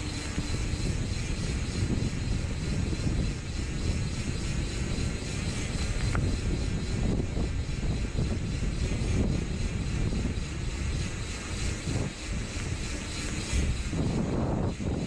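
Wind buffeting the microphone with road rumble during a fast downhill descent on a steep paved road, as a constant low rushing that fluctuates.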